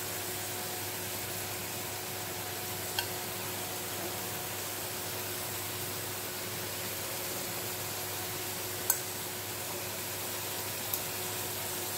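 Courgette slices frying in oil in a non-stick pan, a steady sizzling hiss, with three short clicks of metal tongs against the pan as the slices are lifted out.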